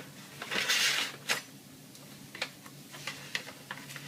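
A Farberware kitchen knife slicing through a raw salmon fillet and its thick skin: a short rasping scrape in the first second, then a few faint clicks of the blade against the cutting board beneath the paper.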